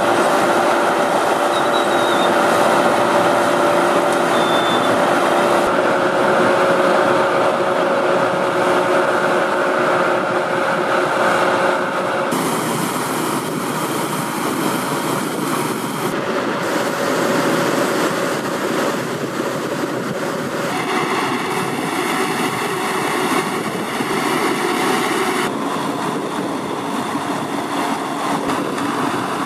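Heavy rocket-launcher trucks' engines running steadily, a continuous mechanical drone with faint steady whining tones. The sound changes abruptly several times.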